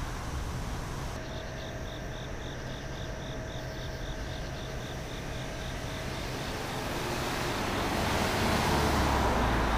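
Outdoor night-time city ambience: steady traffic hum, swelling over the last few seconds as a vehicle approaches. A faint, regular high chirping, about five a second, runs through the first half.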